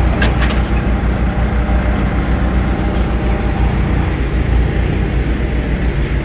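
Bobcat telehandler's diesel engine running steadily with a deep rumble. A couple of short sharp clicks come about a quarter second in.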